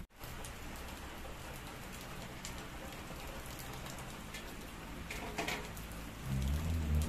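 Steady rain falling and pattering on wet ground, with a couple of short knocks about five seconds in as an aluminium pot is set on the clay stove. A low rumble sets in near the end and becomes the loudest sound.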